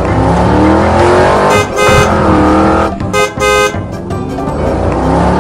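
Cartoon-style vehicle sound effects: an engine revving up in repeated rising sweeps, with a horn honking three times in the middle, over background music.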